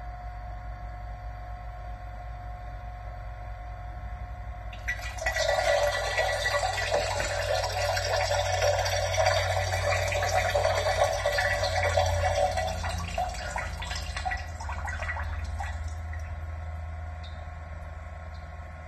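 Toilet flushing: a rush of swirling water starts suddenly about five seconds in, stays loud for several seconds, then slowly fades.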